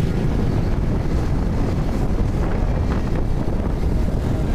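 Wind buffeting a phone's microphone on a moving motorcycle, a loud steady low rumble.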